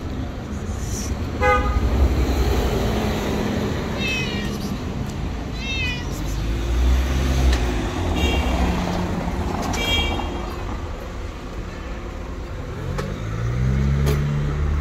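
A fluffy gray long-haired cat meows about five times in short calls over the low rumble of street traffic. Near the end a vehicle engine rises in pitch as it pulls away.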